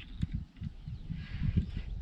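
Wind buffeting the microphone in uneven low gusts, with a rustling hiss rising about a second in.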